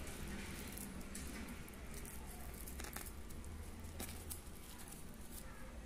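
Faint crinkling and rustling of a thin plastic popsicle bag being twisted and knotted by hand, with a few soft ticks.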